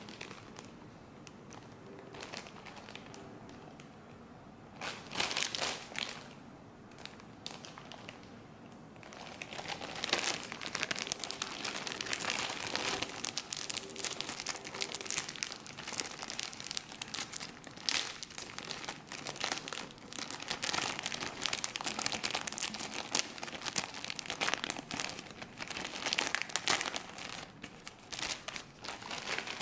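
Plastic packaging crinkling and rustling as a trading-card starter pack is unwrapped by hand: a brief burst about five seconds in, then steady crinkling from about nine seconds in.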